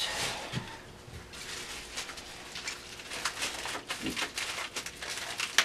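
Plastic wrapping and bubble wrap crinkling and rustling in short, irregular crackles as it is handled and pulled off a lamp.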